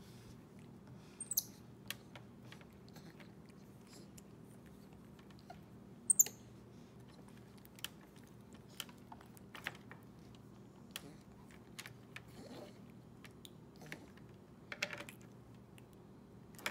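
Scattered small clicks and taps of hard plastic as a capuchin monkey handles and bites the plastic stylus of a magnetic drawing board, with a sharper, louder click about six seconds in.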